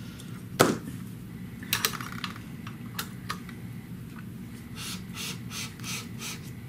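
Metal clicks and clatter from handling a shear-holding clamp and a T-handle tool on a shear-sharpening machine: a sharp loud click about half a second in, a few lighter clicks, then a quick run of about seven light scrapes near the end, at roughly four a second. A steady low hum runs underneath.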